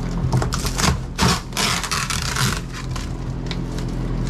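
Rotten plywood boat floor and the yellow foam beneath it being torn up by hand: a run of crackles and snaps, with a longer tearing, scraping rasp about a second in. The soft, rotted wood crumbles as it is pulled away.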